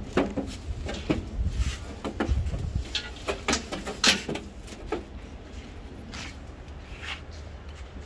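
A big goat stepping onto a livestock weighing platform: irregular knocks and clatter from its hooves and the metal rails, with low thumps. The loudest knock comes about four seconds in, and the knocking dies down after about five seconds.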